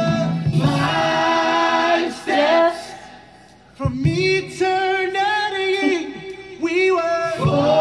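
Singing, with a woman's voice among the singers, in phrases with long held notes; it drops away briefly about three seconds in, then comes back with a long sustained note.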